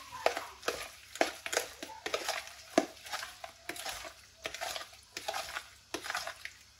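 Raw goat liver pieces being mixed by hand with spices in a plastic bowl: a string of soft, wet, irregular strokes, about two a second.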